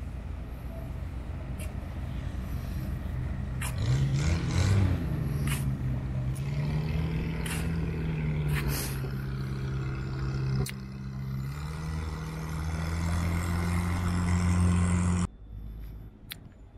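An engine running as a steady low drone that rises in pitch about four seconds in and then holds, over a rushing background hiss; it cuts off suddenly near the end.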